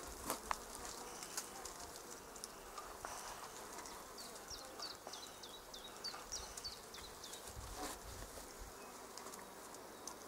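Honeybees of a swarm buzzing in the air around the hive-site branch. Midway a string of about ten quick, high, falling chirps sounds over the hum, with a few scattered clicks.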